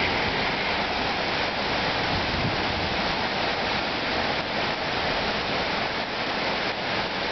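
Heavy rain pouring down in a torrential downpour, a steady, even hiss.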